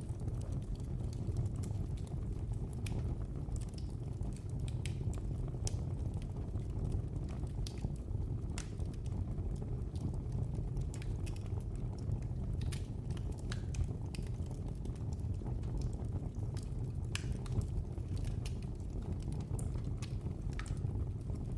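Wood fire burning in a fireplace with a steady low roar and frequent irregular sharp crackles and pops.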